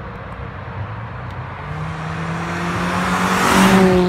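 A vehicle speeding past: a rising hum and rush that grows loud near the end, at its peak as the vehicle goes by, then the pitch starts to drop.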